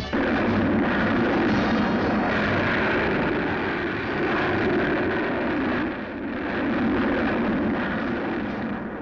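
Steady, loud roar of a Vanguard rocket's launch failing into an explosion and fire on the pad, without distinct bangs, easing slightly about six seconds in.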